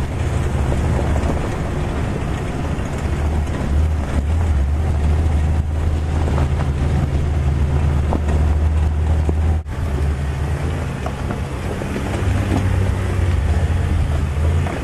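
Steady low engine drone of an open-topped Jeep driving on a dirt trail, with wind buffeting the action camera's microphone. There is a brief break about ten seconds in.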